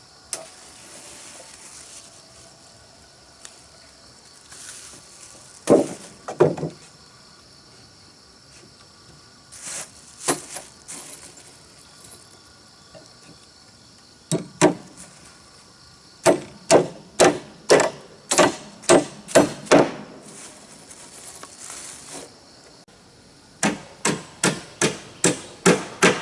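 Repeated blows on wood: a few single strikes, then a steady run of about nine at roughly two a second, and another run of about seven near the end.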